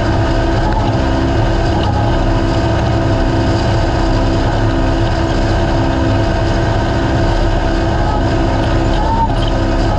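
Naturally aspirated UTV race car engine running at steady revs, a loud continuous drone with road and wind noise beneath it.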